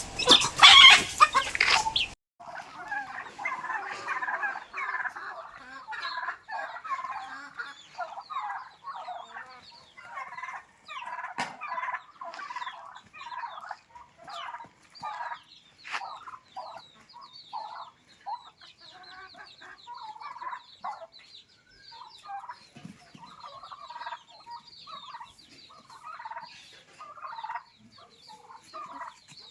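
A flock of chickens clucking in many short, overlapping calls. The first two seconds hold a louder rush of noise that cuts off abruptly.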